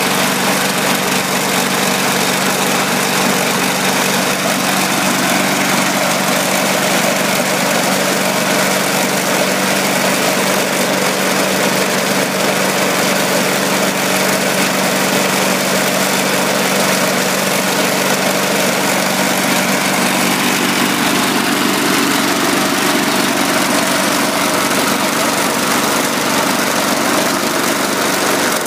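1991 Tecumseh 4 HP single-cylinder four-stroke lawn mower engine on a Craftsman Eager-1 running steadily at speed, freshly revived after its carburetor and fuel tank were cleaned.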